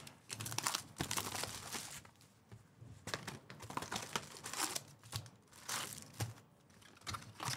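Topps Chrome trading-card pack wrappers crinkling and being torn open, a run of irregular rustles and rips.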